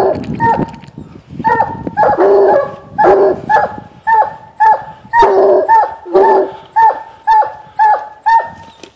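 Several coonhounds (Black and Tan, Bluetick and Walker) barking treed at a mountain lion up a tree, in short repeated chop barks about two a second, with more than one voice at different pitches. The barks start about a second and a half in. This is the treed bark that tells the hunter the cat is bayed up the tree.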